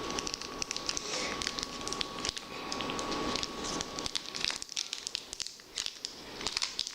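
Plastic candy wrapper crinkling and crackling as it is handled and opened to take out a packaged marshmallow.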